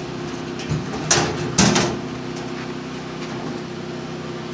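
An engine running with a steady hum, with two sharp metallic knocks about half a second apart a little over a second in.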